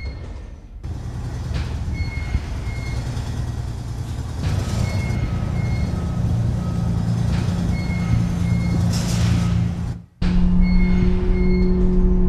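Music soundtrack over the low rumble of a bus: a pair of short high beeps repeats about every two seconds above held low bass notes. About ten seconds in, everything cuts out for a moment, and the music comes back with louder sustained low notes.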